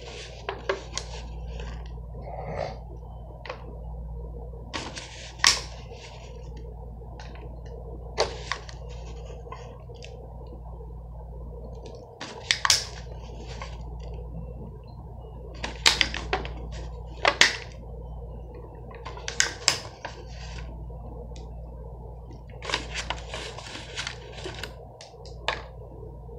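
Scattered sharp clicks and crinkles of a thin plastic snack tray and packaging being handled as shredded cheese and pepperoni are picked out and put on a small pizza crust. A steady low hum runs underneath.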